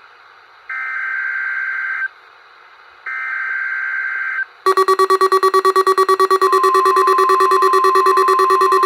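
NOAA Weather Radio SAME test: two bursts of the warbling digital header data, each about a second and a half long with a second's gap between them. About four and a half seconds in, a weather-radio receiver's alarm sets off, a rapid buzzy beeping of about seven pulses a second. About two seconds later the broadcast's steady warning tone joins under the beeping.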